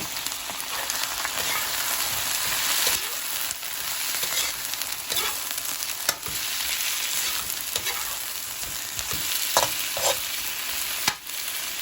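Large shrimp sizzling in hot oil with sautéed onion and garlic while being stirred in a wok, the spatula scraping and clicking against the pan now and then.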